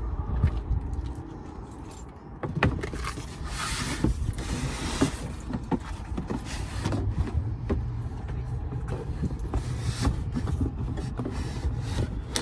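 Knocks, clicks and scrapes of an Icy Breeze portable air conditioner being lifted and set onto a wooden shelf inside a minivan, with handling rattles throughout.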